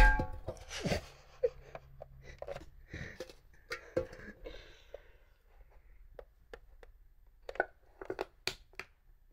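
Aluminium Coca-Cola can set down with one loud ringing clank, then scattered light clicks and crinkles of the thin can metal under handling and pressure from a sandal.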